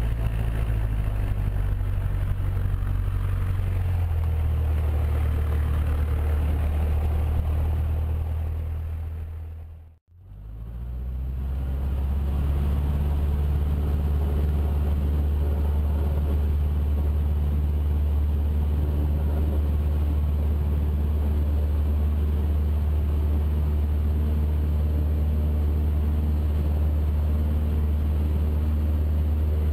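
Cessna A152 Aerobat's four-cylinder Lycoming O-235 engine running steadily at low power, heard from inside the cabin. Its note shifts slightly about four seconds in. The sound fades out and back in about ten seconds in.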